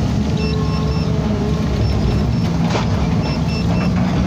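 Heavy construction machine's diesel engine running steadily under load, with a constant low hum, while a high electronic beeper sounds in short, regularly repeated pips.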